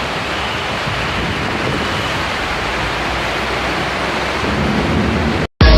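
Heavy rain pouring down in a steady, even hiss; it cuts off suddenly near the end.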